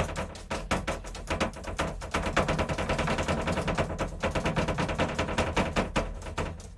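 A cat's front paws rapidly tapping and slapping against mirror glass as it bats at its own reflection: a quick, uneven run of sharp taps, several a second.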